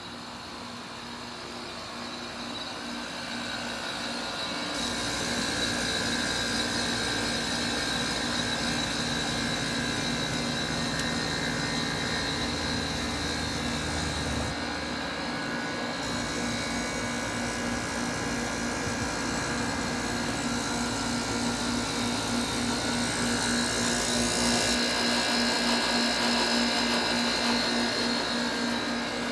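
Carrier Comfort Series heat pump outdoor unit running through its defrost cycle: a steady compressor hum under a hiss, growing louder over the first few seconds.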